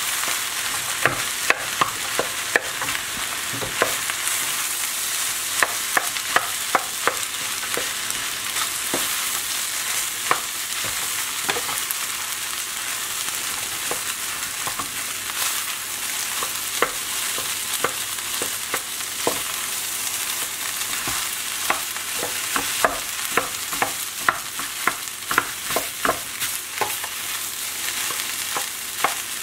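Ham fried rice sizzling in a hot skillet while a wooden spatula stirs and breaks it up, with a steady frying hiss and frequent irregular scrapes and taps of the spatula against the pan.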